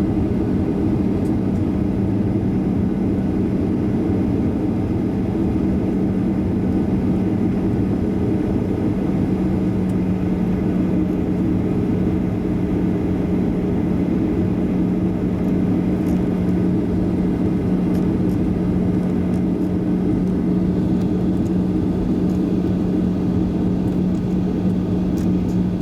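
Steady cabin hum inside a jet airliner on the ground before takeoff, with one steady low tone over a noisy rumble.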